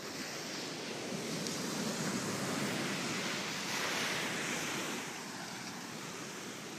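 Ocean surf washing up on a sandy beach, swelling to its loudest about four seconds in and easing off again.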